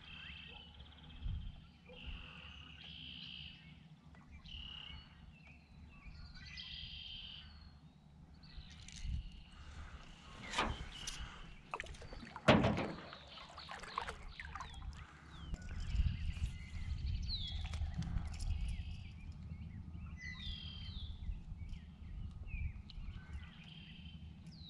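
Songbirds calling in short repeated phrases over a steady low rumble, with a few clicks and one sharp knock about twelve seconds in.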